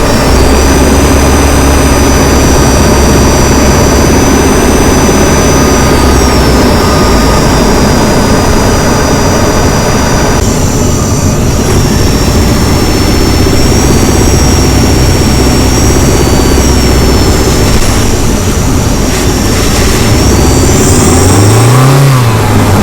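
Honda HR-V e:HEV hybrid's 1.5-litre four-cylinder petrol engine running steadily under the bonnet, with a high steady electric whine from the hybrid drive. Near the end the engine revs rise briefly and fall back.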